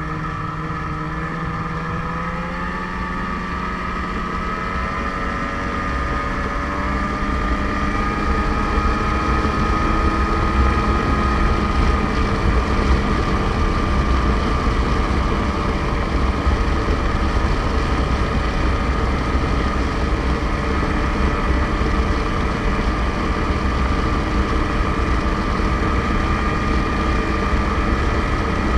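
Snowmobile engine running while under way, its pitch easing slightly at first and then climbing as the sled speeds up, after which it holds steady and louder. Wind rushes over the microphone throughout.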